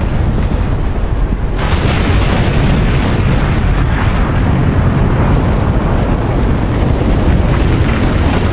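Volcanic eruption sound: a loud, continuous deep rumble, joined about one and a half seconds in by a louder rushing noise that reaches high up and keeps going.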